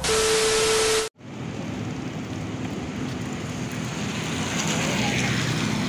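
A loud hiss with a steady tone for about a second, ending in an abrupt cut. Then steady outdoor traffic ambience on a wet street, with a low engine hum under an even wash of noise.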